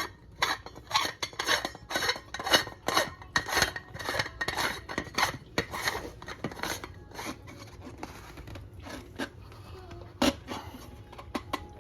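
Hard plastic parts of a countertop water filter clicking and clattering in quick succession as its housing is handled and screwed back on; the clicks thin out in the second half, with one sharper knock near the end.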